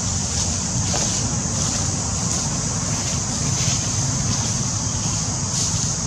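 Steady outdoor ambience: low wind rumble on the microphone under a constant high-pitched hiss.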